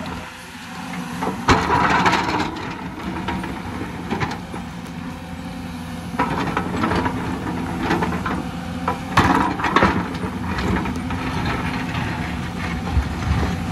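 Hyundai crawler excavator's diesel engine running under load while its bucket digs into soil and rock, with several loud scraping, knocking bursts of the bucket on the rock, the loudest about 1.5 s in and again around 9 to 10 s in.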